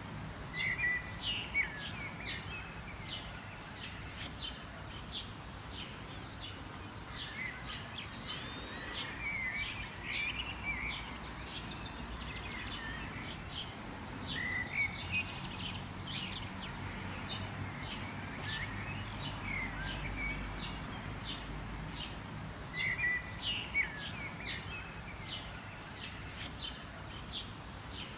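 Birds chirping and calling in a steady chorus of many short, high, overlapping notes, over a low background rumble.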